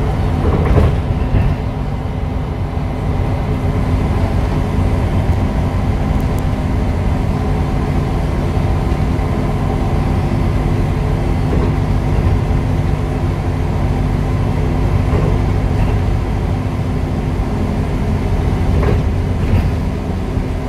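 Cabin sound of a MAN NL263 Lion's City city bus driving at a steady speed: an even diesel engine hum over road rumble.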